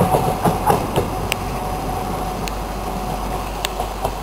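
Red diesel shunting locomotive running light and moving away, its running sound a steady rumble with a whine and slowly fading. Scattered sharp clicks come from the wheels on the track.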